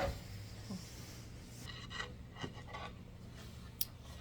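Scraping, rubbing and small clicks of hands handling parts and hardware during flat-pack furniture assembly, with one sharp click near the end.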